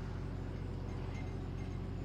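A truck's diesel engine idling with a steady, unchanging low hum, with faint highway traffic behind it.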